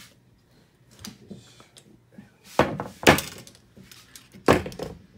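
Three loud, sharp knocks, about half a second and then a second and a half apart, as a wrench is worked against the stiff lock nut on a motorcycle rear shock absorber to break it loose, with lighter clicks of the tool between.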